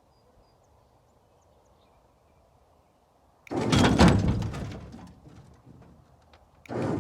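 Heavy steel truck parts lurching with a sudden loud clank and scrape about three and a half seconds in, fading over a second or so, then a second, shorter clunk near the end: the Ford dually's rear section shifting and knocking against the trailer as it is winched up.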